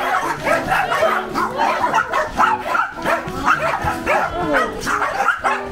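Several small dogs barking and whining over one another, excited and wanting to be picked up.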